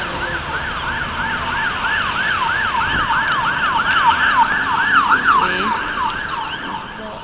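Emergency vehicle siren in a fast yelp, about three rising and falling sweeps a second, growing louder and then fading away near the end.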